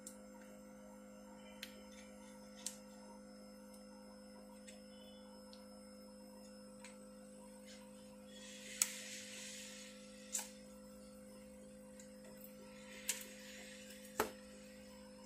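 Plastic pry card worked around the seam of a smartphone's glued back panel: scattered sharp clicks as clips and adhesive let go, with two short scraping hisses in the second half.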